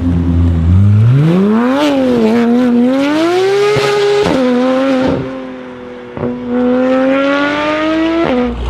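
Modified car engine accelerating hard, its pitch climbing and dropping sharply at gear changes, twice. There are a few sharp cracks along the way.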